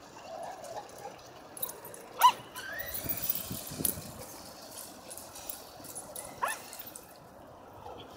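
A dog barks sharply twice: one short bark a couple of seconds in and another about six and a half seconds in, with quieter rustling noise between them.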